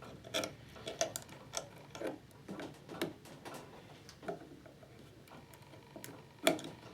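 Irregular small clicks and taps of hands and tools working on a lithium-ion battery pack, with a sharper knock near the end.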